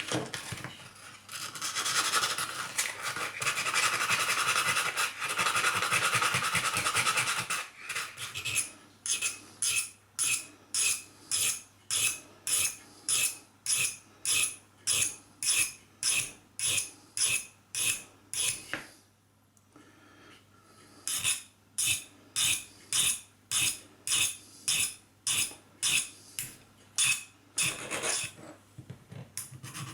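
Steel screwdriver tip being cleaned up by hand with wet-and-dry paper and a small flat file: a stretch of continuous scraping, then even back-and-forth strokes about two a second, a short pause about two-thirds of the way in, more strokes, and continuous scraping again near the end.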